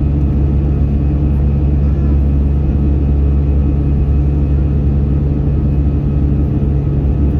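Airbus airliner's jet engines running, a steady loud drone with a deep hum.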